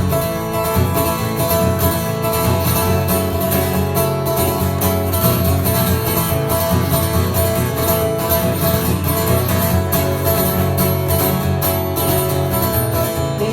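Live band playing an instrumental passage between verses, guitar to the fore over a steady beat.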